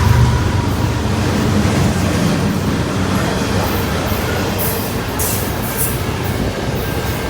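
CN intermodal freight train rolling past: a steady rumble and rattle of wheels on rail, with a few brief high-pitched bursts about five seconds in.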